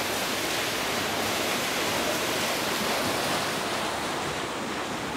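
Paddle wheels of the paddle steamer Waverley churning the water inside the paddle box: a steady, loud rushing splash, its hiss thinning a little near the end.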